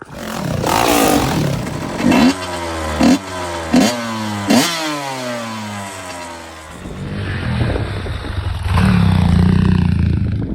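Motorcycle engine revving hard again and again: four sharp throttle blips about a second apart, each falling away in pitch, then a steadier run near the end.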